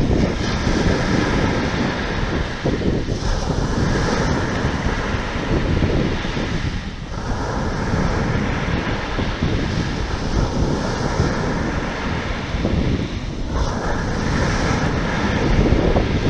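Strong wind buffeting the microphone over the rush of sea waves, with brief lulls about three, seven and thirteen seconds in.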